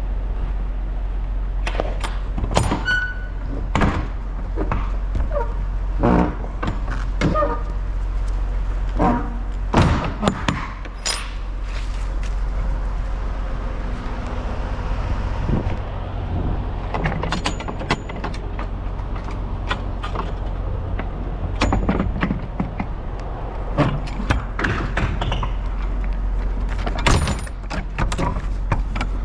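Semi truck's diesel engine idling steadily under a series of irregular clunks and knocks.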